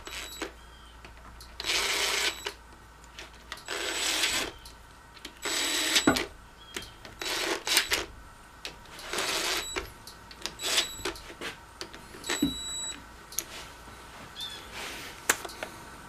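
Cordless drill/driver with a socket spinning bolts into a backhoe transmission housing in a series of short runs, about one every one and a half to two seconds, with a few sharp clicks of metal in between. The bolts are being run in snug before they are torqued to 22 foot-pounds.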